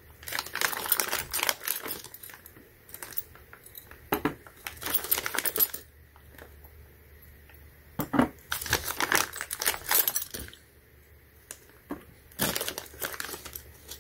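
A small plastic parts bag crinkles in four bursts of one to two seconds each. Light metallic clinks come from small steel hot-air nozzles and screws being handled.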